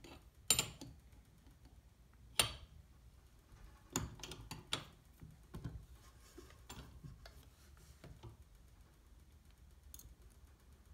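Irregular metal clicks and clinks of wrenches on a rivnut setting tool as it is turned to draw up and set an M5 rivnut, the sharpest about half a second and two and a half seconds in, with fainter ones spread through the rest.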